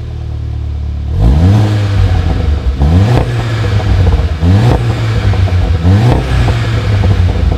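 VW Golf VII GTI's 2.0-litre turbocharged four-cylinder engine running through a REMUS cat-back exhaust: idling for about a second, then revved four times, each rev a quick rise in pitch.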